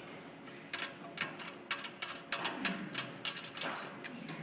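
Irregular metallic clicks and clanks, about eight over a few seconds, from hand tools and parts being handled while an on-car brake lathe and its lug adapter are unbolted and removed from the hub.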